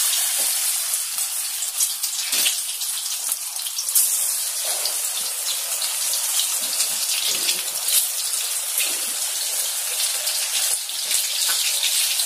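Pakora batter deep-frying in hot oil in a steel kadai: a steady loud sizzle with many fine crackles.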